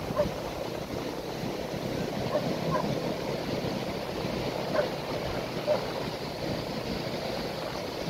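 Ocean surf washing in over a flat sandy beach: a steady, even rush of breaking waves and water running up the sand.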